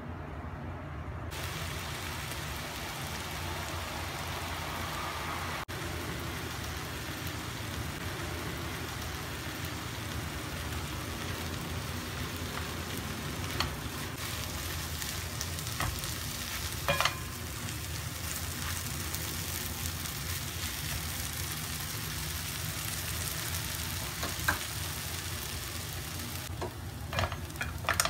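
Cucumber slices, egg and meatballs sizzling as they stir-fry in a nonstick wok, a steady hiss of frying. A spatula stirs through them, with a few sharp clicks in the middle and several more near the end.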